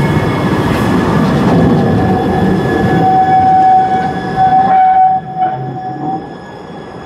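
Articulated low-floor tram passing close by on a curve: a rolling rumble, with a steady high wheel squeal from about three seconds in until about six seconds. The rumble falls away near the end as the tram moves off.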